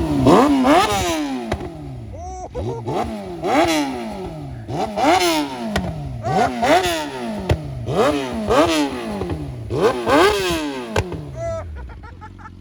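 Yamaha R6 inline-four sport-bike engine being revved hard in neutral, over and over about once a second, each rev climbing sharply and falling back.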